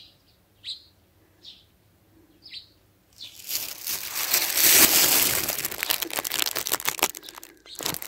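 Sparrows chirping, three short chirps in the first few seconds. Then, from about three seconds in, a plastic bag crinkling loudly for some four seconds as it is handled.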